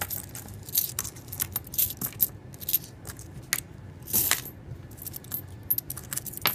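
Pennies clinking and sliding against one another as a hand pushes them around on a towel: irregular light metallic clicks, a few a second, with a longer jingle about four seconds in.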